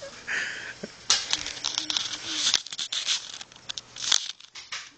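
Irregular rustling and crinkling with sharp clicks, coming in quick bursts, with a faint held hum about a second and a half in.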